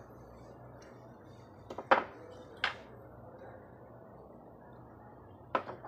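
Carved wooden batik printing blocks being handled, giving a few sharp knocks: a quick cluster about two seconds in, another just after, and one near the end. A faint steady hum sits underneath.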